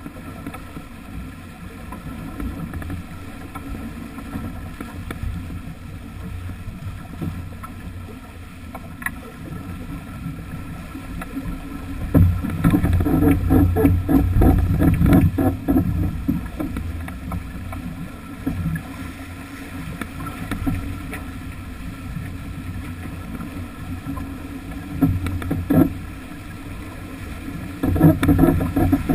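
Bow wave rushing and splashing along the hull of a sailing yacht heeled hard under sail, with wind on the microphone. The wash swells louder and choppier for several seconds about halfway through, and again in short bursts near the end.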